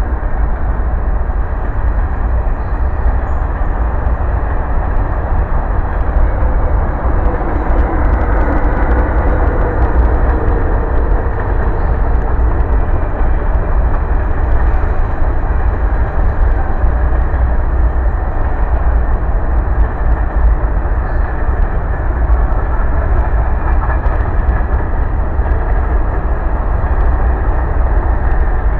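Freight train cars rolling past in a steady, continuous rumble of wheels on rail.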